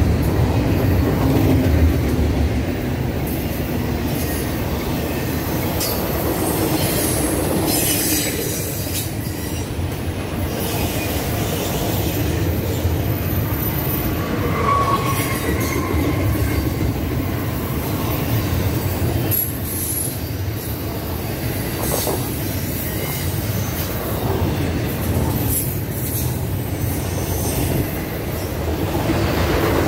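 Double-stack intermodal container train's well cars rolling past: a steady rumble of steel wheels on rail, with high wheel squeals coming and going and a few sharp knocks at rail joints.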